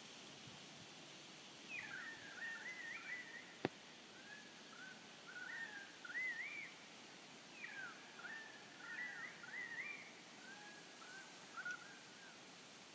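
A songbird singing in short, repeated warbling phrases over a faint, steady outdoor hiss, with one sharp click a few seconds in.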